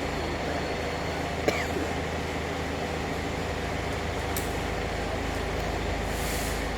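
A heavy engine running steadily with a low, even hum. There is a sharp click about a second and a half in, another near four and a half seconds, and a short hiss near the end.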